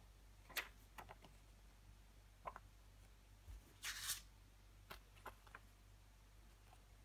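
Faint handling of thin paper insert cards: a few light taps and clicks, with one brief paper rustle about four seconds in.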